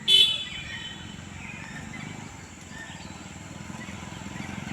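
A short, loud, high-pitched call right at the start, then faint scattered bird chirps over a steady low outdoor background.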